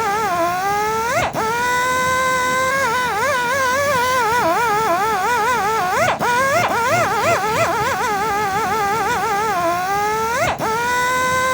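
Electric buffing polisher's motor whining under load, its pitch wavering as the pad works the surface. Three times, about a second in, midway and near the end, the whine drops briefly and then springs back up.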